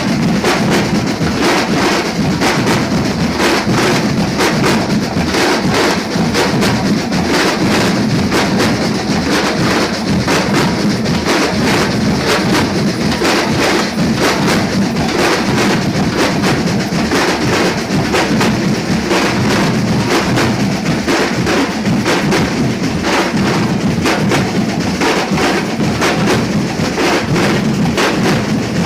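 Percussion group drumming together in a dense, unbroken rhythm, with closely packed drum strokes and the low drums strongest.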